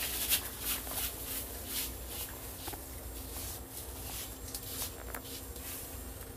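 A rubber-gloved hand rustling through short hair close to the microphone: a series of soft, irregular swishes, over a faint steady hum.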